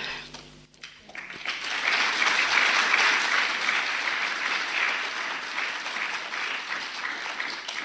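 Audience applauding a welcome. The clapping starts about a second in, swells quickly, then slowly tapers off near the end.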